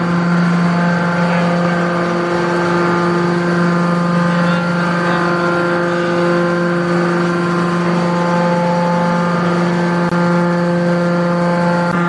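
Hydraulic scrap-metal baling press's power unit running with a steady hum, a low drone with several even tones above it, while the press ejects the finished bale from the chamber.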